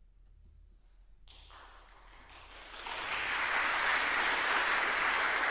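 Audience applause, starting after about a second of quiet and swelling within a couple of seconds into steady, dense clapping.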